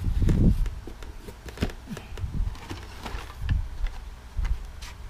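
Cardboard box flaps being pushed open and Hot Wheels blister-card packages being handled: low knocks in the first half second, then light scattered clicks and rustles of plastic and card.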